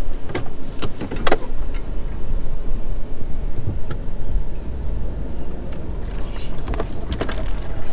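Ford F-150 pickup crawling slowly on a rough bush trail, heard from inside the cab: a steady low rumble of engine and tyres, with a few scattered knocks and clatters.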